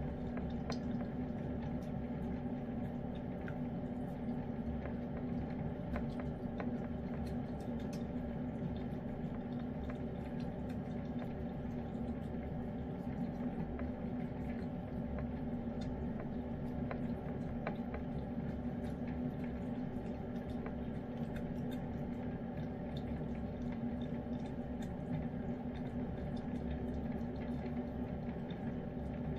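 Lynx point Siamese cat eating wet chicken pâté from a dish: wet licking, smacking and chewing, heard as many small clicks. A steady low hum runs underneath.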